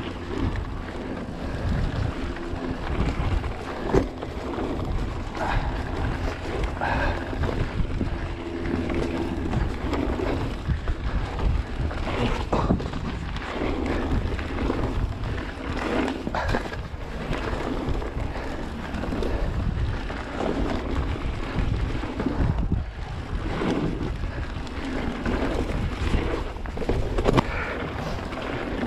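Mountain bike rolling fast down a dirt trail: steady wind rush on the microphone, with the tyres and frame rattling over the rough ground and a few louder knocks from bumps and landings.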